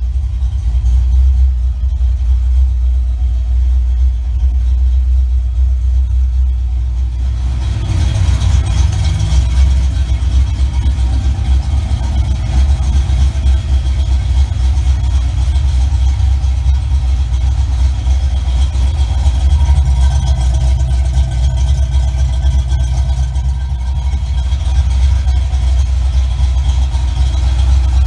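Ford 302 (5.0 L) small-block V8 of a 1988 Mustang GT idling steadily, a deep even drone. A broader rushing noise comes up about seven and a half seconds in and continues.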